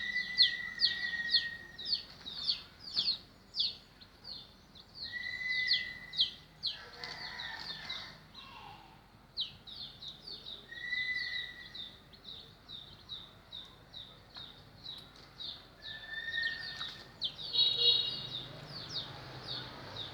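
Chicks peeping rapidly and continuously, with a few drawn-out, even calls about every five seconds.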